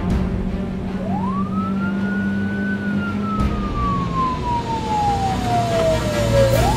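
Police car siren wailing: the pitch climbs quickly about a second in, then falls slowly over several seconds and starts to climb again at the end, over a low steady hum.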